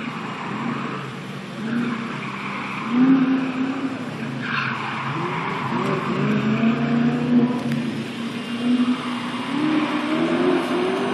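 BMW rally car's engine revving up and dropping back again and again as it is driven hard through the course's turns, with tyres skidding and a brief squeal about four and a half seconds in.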